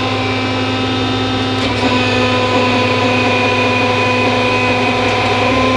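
A 1989 YCM Supermax TC-2 CNC lathe stands powered up with its hydraulic unit running, giving a steady hum with a whine over it. About two seconds in there is a faint click and the whine shifts a little as the hydraulic tailstock quill moves.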